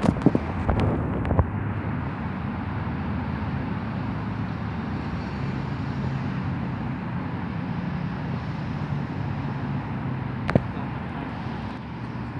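Steady low mechanical hum in the background, with a few sharp clicks in the first second and a half and another about ten and a half seconds in.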